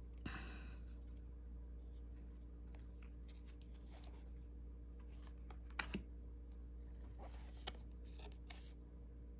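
Soft swishes and taps of small cardstock oracle cards being slid off the deck and laid over one another by hand, scattered and quiet, with a few sharper taps a little past halfway. A faint steady hum runs underneath.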